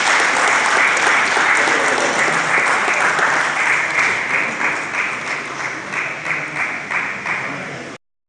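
Audience applauding, the dense clapping thinning to separate, fading claps in the second half, then cutting off abruptly.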